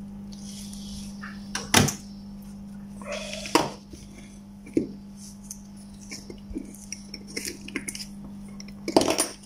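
Small metal and plastic parts of a dismantled 12 V air compressor clacking and clicking as they are handled: the valve plate, cylinder housing and piston sleeve. There are a few sharp knocks, the loudest about two seconds in and just before the end, with lighter ticks between, over a steady low hum.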